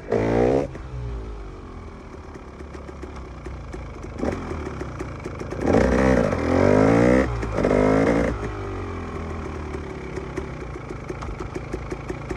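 KTM EXC 300 two-stroke enduro engine revved in short bursts: once right at the start, briefly about four seconds in, and three times in quick succession between about six and eight seconds. In between it runs at low revs with an even beat.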